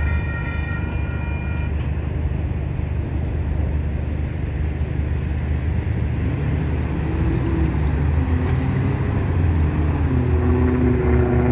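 Railroad crossing bell ringing, then falling silent about two seconds in as the gates begin to lift. After that comes a steady low rumble of road traffic, with a vehicle engine rising in pitch as it pulls away near the end.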